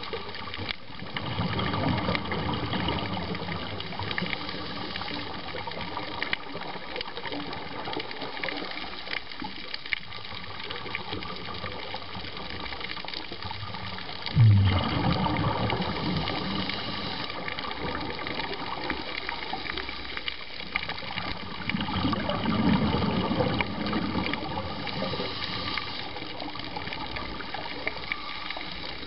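Underwater sound of a scuba dive: bursts of bubbling from the diver's exhaled breath, over a constant fine crackle of clicks. About 14 seconds in a sudden low thump opens the loudest burst, and another surge comes a few seconds after 20.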